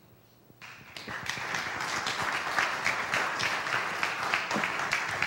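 Audience applauding: it starts about half a second in, swells quickly and holds as a steady round of clapping.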